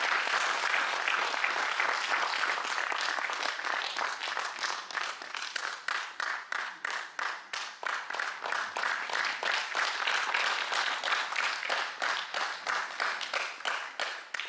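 Audience applause: a dense, even clatter that settles after about five seconds into rhythmic clapping in unison, about three claps a second, stopping right at the end.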